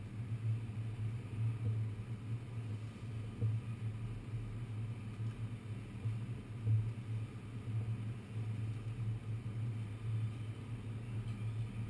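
Steady low rumble and hum inside a New York City subway car, with the deep drone wavering in level.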